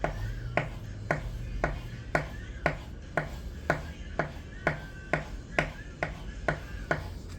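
Folding knife's AR-RPM9 steel blade drawn across a pine wood table in repeated drag cuts, an edge-abuse test of the blade, each stroke a short sharp scrape-and-knock at a steady rhythm of about two a second.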